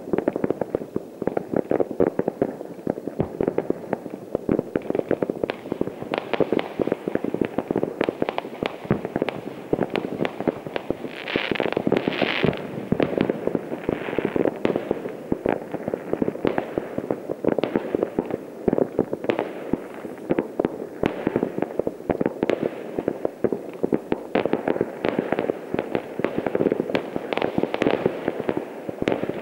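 Many fireworks and firecrackers going off at once, a dense, unbroken crackle of bangs and pops with no pause. Near the middle, a hiss rises over them for a second or two.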